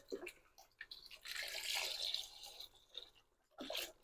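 Chicken broth pouring from a carton into a Dutch oven of cooked-down vegetables, with a steady splashing from about one second in to nearly three seconds and a few small drips and knocks around it.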